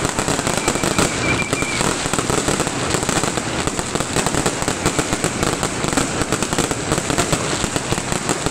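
Aerial fireworks going off in a dense, continuous barrage of rapid bangs and crackles.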